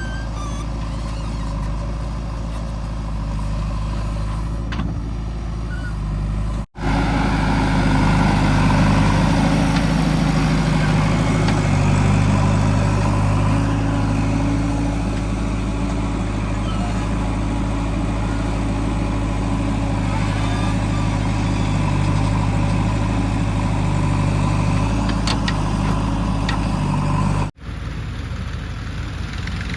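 Heavy diesel engine running steadily, its pitch shifting slightly up and down as it works. The sound breaks off abruptly for an instant twice, about seven seconds in and near the end.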